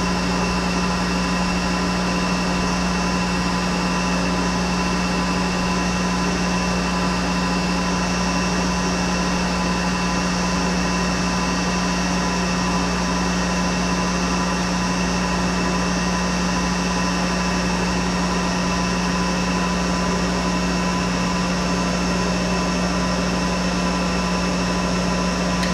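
1983 Monarch 10EE toolroom lathe with its 5 hp DC variable-speed drive, running steadily at 2,000 RPM under power feed on a finish cut in 12L14 steel: a strong, even hum with several steady whining tones that never change pitch.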